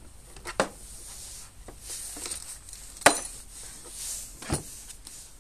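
Moulded plastic tool case being packed with a battery charger and its cable: light knocks and rustling, a sharp plastic clack about three seconds in, and a duller, deeper knock about a second and a half later.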